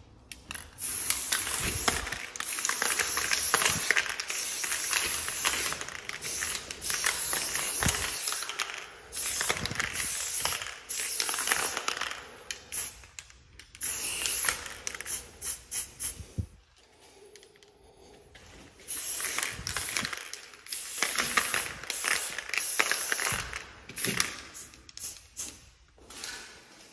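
Aerosol spray paint can hissing as red paint is sprayed onto a wall for a graffiti throwie, in long sprays broken by runs of short spurts, with a pause of a couple of seconds past the middle.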